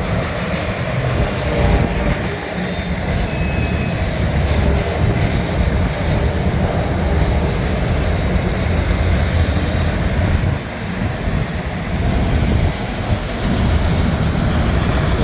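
Loaded autorack freight cars rolling past with a steady rumble of wheels on rail. A high-pitched wheel squeal joins in from about halfway through.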